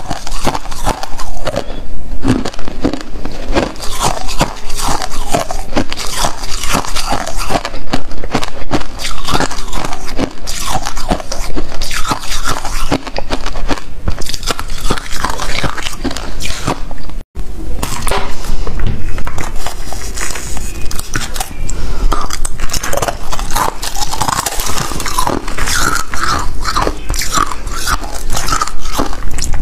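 Close-miked biting and chewing of crunchy frozen ice, with crisp crunches in quick, dense succession. A brief gap about two-thirds through, after which the crunching goes on.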